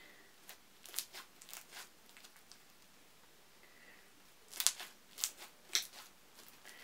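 Crunchy clear slime with beads mixed in being squeezed and stretched by hand, giving scattered crackles and pops. A quieter stretch in the middle, then a burst of louder crackles about two-thirds of the way through.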